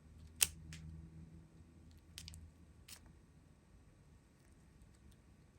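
A few faint clicks and crinkles of small plastic bags of diamond-painting drills being handled, the sharpest about half a second in, over a faint low hum.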